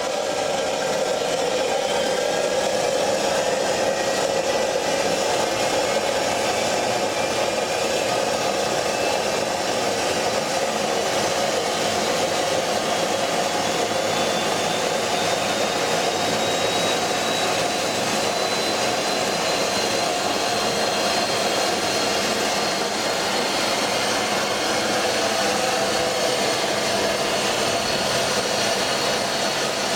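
Homemade free-turbine gas turbine engine starting up on propane: a steady rushing roar of air and combustion, with a faint whine that slowly climbs in pitch as the turbine spools up.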